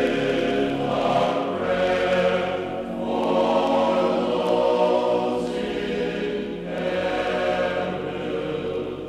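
Background music of a choir singing long held chords, swelling and easing in phrases every few seconds.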